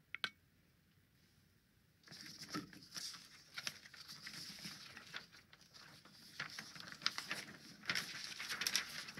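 A single click, then about a second and a half later soft, irregular rustling and scratching close to the microphone, with small sharp ticks among it.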